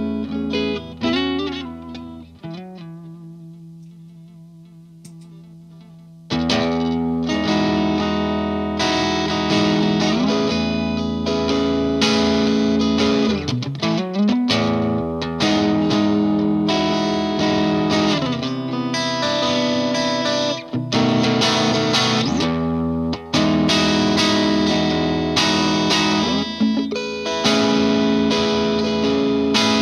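Fender '57 Stratocaster played through an MXR Duke of Tone pedal in overdrive mode into a Vox AC15 on its clean channel, giving a lightly overdriven electric guitar tone. A chord rings and fades away over a few seconds, then the playing picks up again about six seconds in with driven chords and lead lines, including some bent notes.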